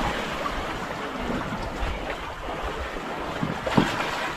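Wind buffeting the microphone over the wash of sea waves around a small boat, with one sharp knock near the end.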